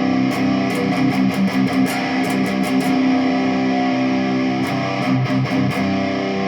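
Jackson Dinky electric guitar played through an amp with its tone knob fully open and a 102J (1 nF) tone capacitor wired in. Ringing notes are picked in quick runs in the first three seconds and again around five seconds in.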